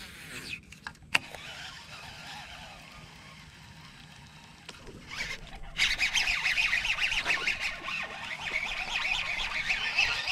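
Baitcasting reel: a cast with a quick swish and click near the start, then from about six seconds in the reel is cranked hard and fast with a loud, steady whirr, winding in a hooked largemouth bass.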